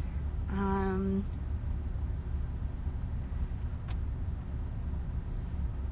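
Steady low rumble of a car driving, heard from inside the cabin. A woman gives a short hummed "mm" about half a second in.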